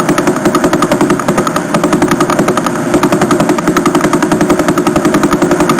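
Vela pulsar's radio signal rendered as sound: a rapid, even train of pulses, about eleven a second, one for each turn of the spinning neutron star, over a hiss of noise.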